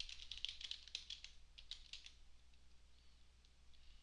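Typing on a computer keyboard: a quick run of key clicks that thins out to a few scattered keystrokes after about two seconds.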